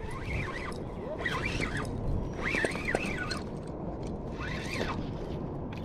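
A bird calls four times in short, rising-and-falling calls over a steady low background noise.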